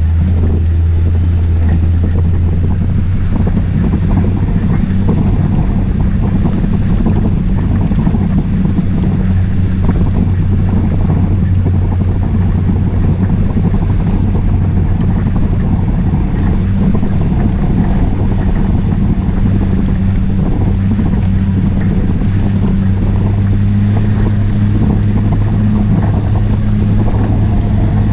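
Onboard sound of an off-road utility vehicle's engine running steadily at trail-cruising speed over a dirt track, its drone edging up slightly in pitch near the end.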